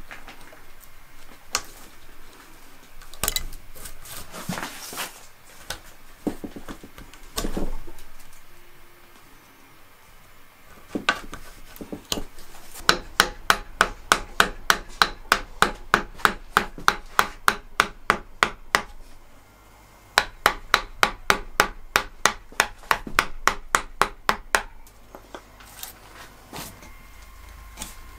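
Wooden mallet tapping a carving gouge through a green log, in two long runs of even, sharp taps about three or four a second. Before them come scattered hand-pushed gouge cuts and scraping in the wood.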